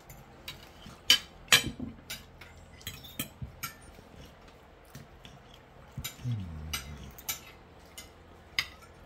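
Cutlery clinking and scraping on a dinner plate during a meal: a string of irregular sharp clicks and clinks, two loud ones a little over a second in.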